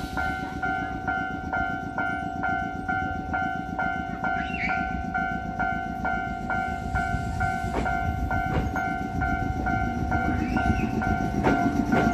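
Level crossing warning bell ringing steadily at about three strokes a second as an Iyotetsu 700 series electric train comes in. Near the end the train's motor hum rises slowly in pitch as it draws alongside, with a few sharp wheel clicks before it.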